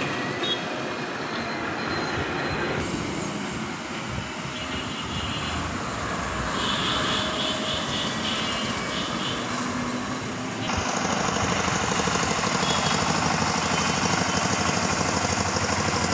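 Road traffic with heavy diesel trucks passing on the street below. About eleven seconds in the sound cuts to the louder, rapid, even chugging of a two-wheel power tiller's single-cylinder diesel engine as it tows a trailer.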